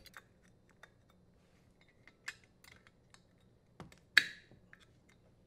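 Scattered small clicks and light metallic clinks of hands fitting the power cord strain relief and nut at a dishwasher's electrical terminal box, with one sharper click about four seconds in.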